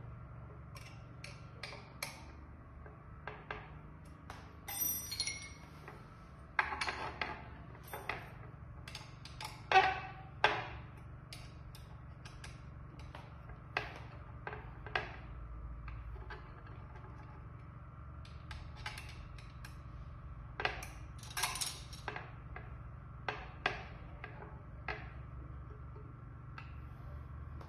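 Small metal parts and tools handled during assembly of a small conveyor frame: scattered clicks, taps and light clinks, with two louder knocks about ten seconds in.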